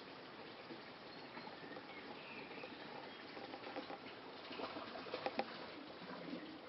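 Birds chirping faintly over a steady hiss of running water, with a quick run of sharp ticks about five seconds in.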